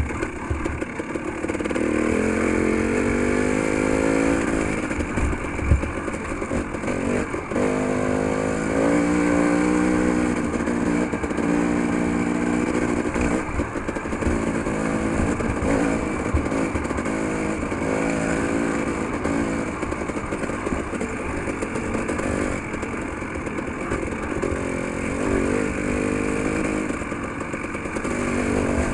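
Dirt bike engine running under way, its revs rising and falling again and again, with one sharp knock about six seconds in.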